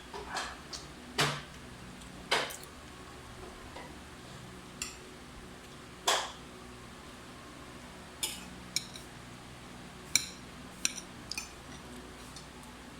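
Spoon and fork clinking and scraping against a plate while eating: irregular single clinks, with a quicker run of lighter, ringing clinks near the end.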